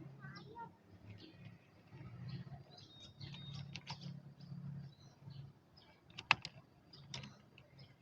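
Faint small clicks and smacks of a cat chewing its food, with birds chirping in the background and one sharper click about six seconds in.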